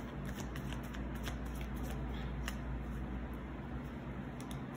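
A deck of tarot cards being shuffled by hand: an irregular run of short card clicks and flicks over a steady low hum.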